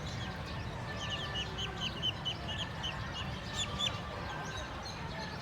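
A bird chirping a fast run of short, high peeps, about four or five a second, starting about a second in and lasting about three seconds, over a steady low rumble.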